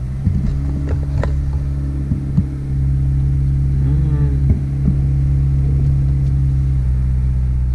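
Mazdaspeed 3's turbocharged 2.3-litre four-cylinder engine running at steady revs through its stock exhaust while driving, with a few light clicks and a brief rising-and-falling squeak about four seconds in.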